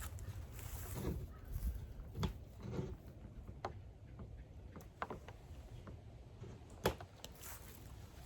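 Scattered light clicks and knocks of hand work on a small backpack blower's fuel system, over a faint low rumble.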